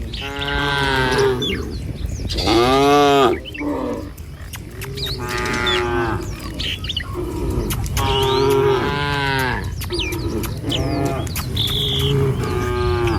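Cows mooing one after another, about half a dozen long calls, some rising and falling in pitch, with small birds chirping in the background.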